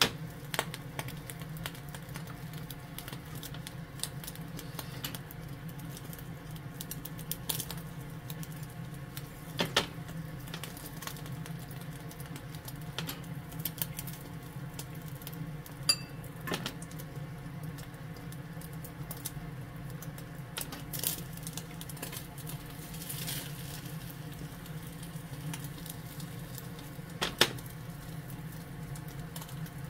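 Egg cooking in a rectangular tamagoyaki pan over a gas flame: a faint, fine crackling over a steady low hum, with a few sharp clicks and knocks as the metal pan and utensils shift on the burner grate.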